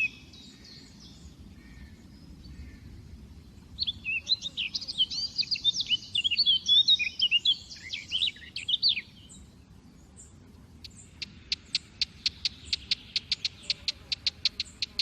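Small songbirds singing: a dense burst of quick twittering chirps for about five seconds, then a fast, even run of short sharp notes, about four a second.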